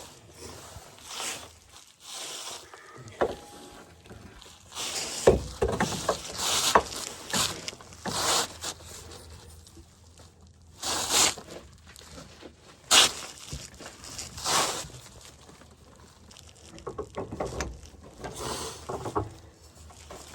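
Irregular clunks, scrapes and rustling of hand work fitting a new rear shock absorber into a van's suspension mounts, with a few sharp metal knocks.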